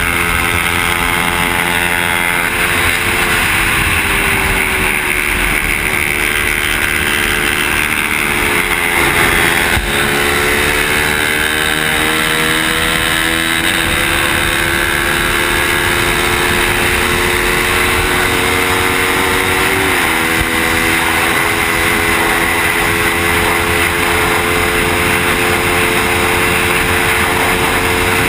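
A Suzuki motorcycle's engine running at road speed, heard from the bike itself under heavy wind rush. The engine note climbs steadily as the bike accelerates and drops sharply at gear changes, about a third and two-thirds of the way through.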